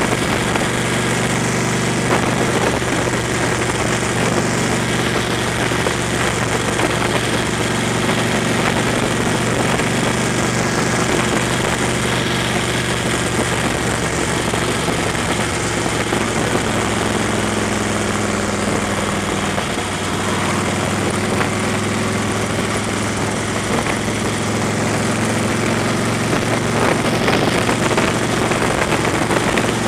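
Car engine running steadily with tyre noise from an unpaved gravel road, heard from inside the cabin: a constant low hum under an even rushing noise.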